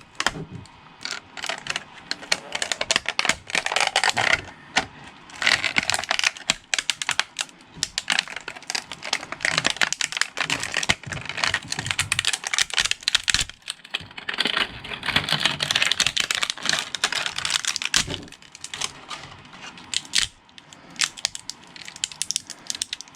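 PETG tree supports being cracked and pulled off a 3D-printed mask: a dense, irregular run of plastic clicks and snaps, with longer stretches of rough rubbing and scraping.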